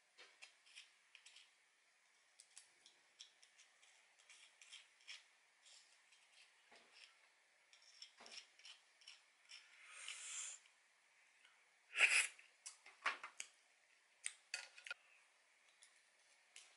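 Metal chopsticks and a spoon clicking and scraping against a small stainless steel bowl and a crab shell as the shell's innards are scraped out and mixed with rice. Many light ticks and clinks, a short rustling swell about ten seconds in, and the loudest clink about two seconds later.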